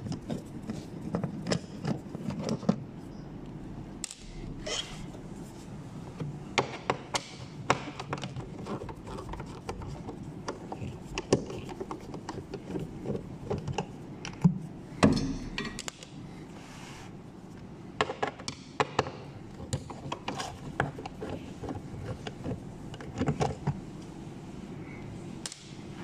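Irregular clicks, taps and knocks of hands working on car parts during a cabin air filter replacement, with a few louder knocks scattered through.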